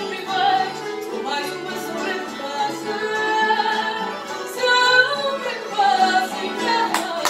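A woman singing a fado in long, held phrases, accompanied by Portuguese guitar and classical guitar (viola): the closing lines of the song.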